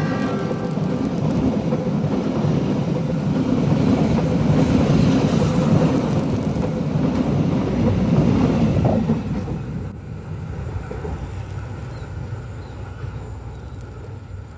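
Train passing close by on its rails, a loud steady rumble of wheels and cars that drops away fairly suddenly about nine and a half seconds in, leaving a quieter fading tail.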